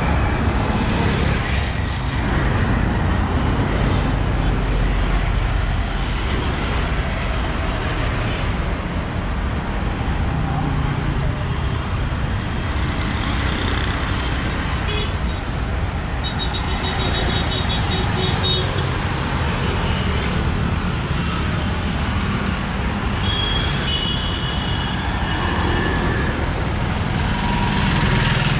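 Steady road traffic passing close by: cars, auto-rickshaws and motorcycles, with engine and tyre noise. Vehicle horns beep about halfway through and again later.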